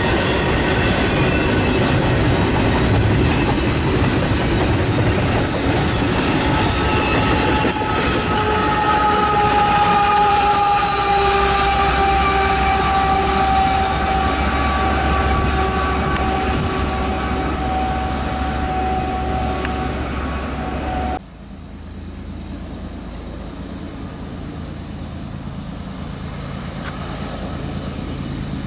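Freight train cars rolling past with wheels squealing, long high tones that slowly fall in pitch over the steady rumble. Near the end it cuts off suddenly to a much quieter low hum.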